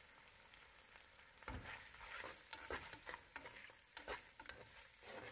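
Sliced onions frying in oil in a pressure cooker pan, a faint sizzle. From about a second and a half in, a spatula stirs them with irregular scraping strokes against the metal.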